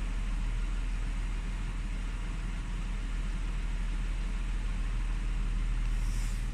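Audi A6's 2.8 FSI V6 (CHVA) engine idling steadily from a cold start, with a ticking that appears only while the engine is cold and lasts until it is fully warm. Its cause is unknown to the owner.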